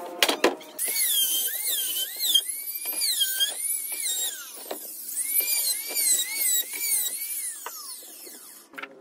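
Palms squeaking as they rub back and forth over glossy HPL laminate, pressing it down onto a plywood board. It is a long run of high, wavering squeaks, each rising and falling in pitch, with a few knocks near the start.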